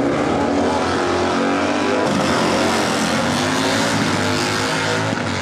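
Drag-racing motorcycle engines running hard at high revs, their pitch climbing as they rev.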